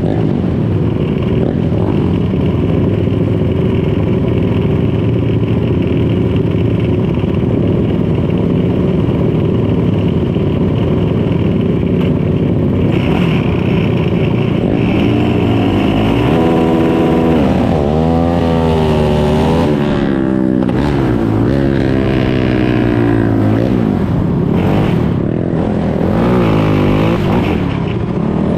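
Race ATV engines running loud and steady, then from about halfway revving up and down repeatedly.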